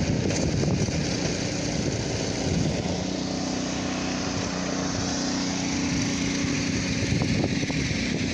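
A small engine running at a steady pitch, clearest through the middle few seconds, over a steady rush of noise.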